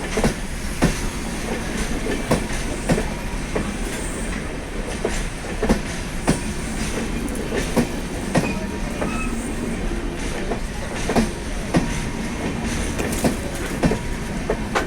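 Passenger train running on the rails, its wheels clicking over rail joints in a steady clickety-clack about every half second or so, over a continuous rumble.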